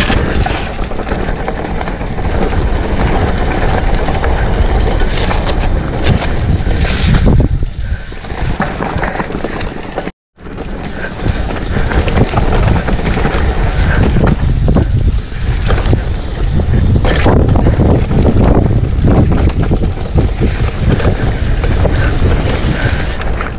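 Mountain bike rolling fast down a dirt forest trail: dense wind buffeting on the camera microphone over tyre rumble and the rattle and knocks of the bike over bumps. The sound cuts out for a moment about ten seconds in, then the riding noise carries on.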